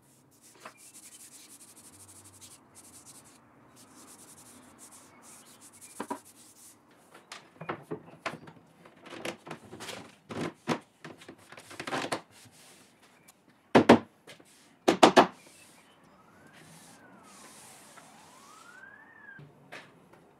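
A door running strip being handled and fitted along a wooden cabinet's rail: faint rubbing, then a string of clicks and knocks, with two loud knocks a little past the middle. Near the end a faint wailing tone rises and falls twice, like a distant siren.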